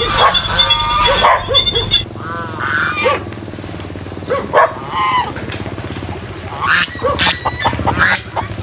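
Farmyard animal calls: clucking over a steady high insect-like tone for about two seconds, then an abrupt change to a quieter background with a string of short, separate calls.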